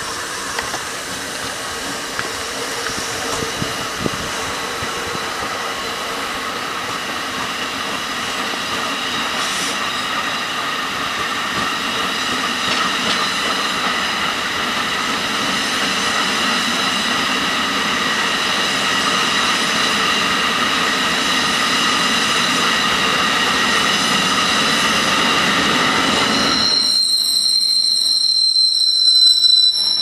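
A passenger train rolling past on the tracks: a steady rush of wheel and rail noise with several held high whining tones, slowly getting louder. About three seconds before the end the lower rush suddenly drops away, leaving a loud, very high-pitched whine.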